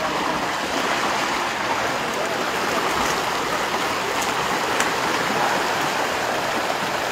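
Steady rushing of a river's current.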